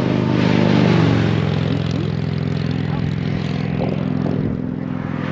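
Motorcycle passing on the highway, loudest about a second in with its pitch falling as it goes by, over the steady low running of idling motorcycle engines.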